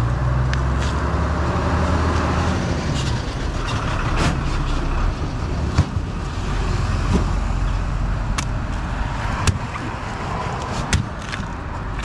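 Road traffic, with a vehicle engine rumbling past in the first few seconds. Over it, a heavy knife chops into palmyra palm fruit with sharp knocks every second or so.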